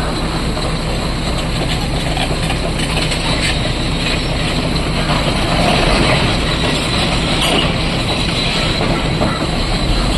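Heavy tracked excavators' diesel engines running steadily under load, with a dense mechanical clatter from the work.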